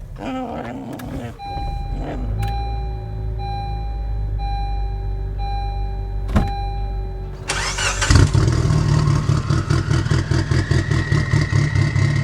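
A car engine runs at idle while a warning chime beeps about once a second. About eight seconds in the chime stops and the engine revs up much louder, pulsing rapidly with a slowly rising pitch, as the car pulls away.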